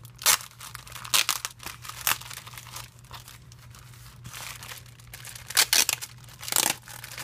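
Thin clear plastic gift baggie crinkling as it is handled and opened, in a handful of sharp crackling bursts with quieter rustling between; the loudest cluster comes near the end.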